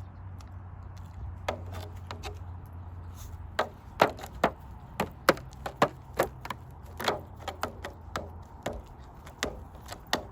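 Pomeranian dog striking a drum, an irregular run of sharp taps that starts sparsely and comes thick and fast from about three and a half seconds in, the hardest hit about four seconds in.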